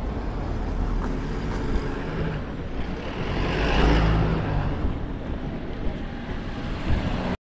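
Street traffic: motor vehicle engines and tyres running close by, swelling loudest about four seconds in as a vehicle passes, over steady road rumble.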